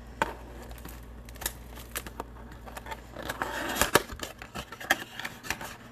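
Hands handling sealed trading-card boxes and their packaging: scattered light clicks and taps, with a spell of rustling about three seconds in.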